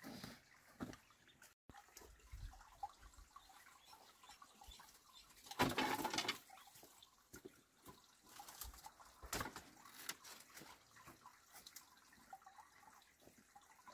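Faint rustling and knocks of handling: cloth and a woven bamboo basket being moved, with a louder scraping rustle about six seconds in as the basket is carried.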